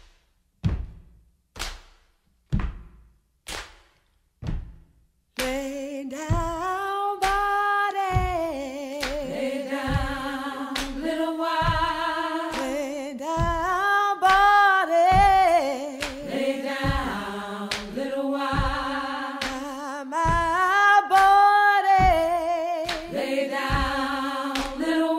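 Music: a lone low drum beat struck about once a second, then from about five seconds in a sustained, wordless singing voice with vibrato enters over the continuing beat.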